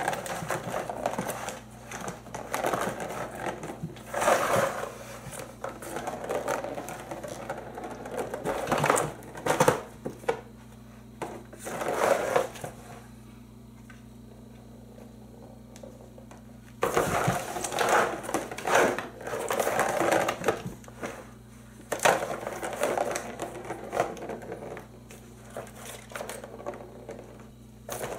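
Ball rolling and rattling around the plastic track of a Turbo Scratcher cat toy as cats bat it, in irregular spurts with short pauses and a longer lull about halfway through.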